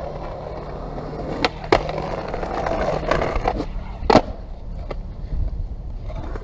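Skateboard wheels rolling on smooth pavement, with several sharp clacks of the board striking the ground as a trick is done; the loudest clack comes a little past four seconds in.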